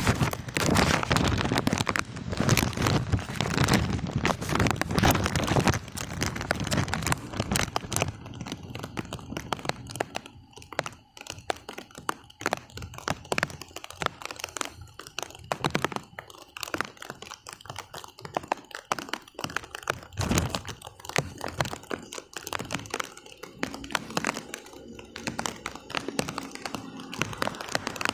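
A jumble of knocks, scuffs and crackles with indistinct voices, dense and loud for about the first six seconds, then sparser and quieter.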